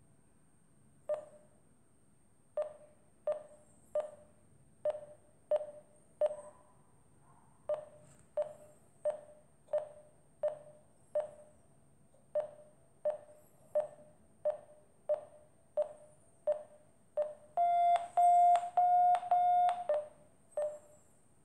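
Electronic free-flight variometer sounding its climb tone: short beeps of one pitch repeating about one and a half times a second. Near the end comes a louder run of longer, slightly higher beeps that almost join together, the variometer signalling climb as the barometric module is raised.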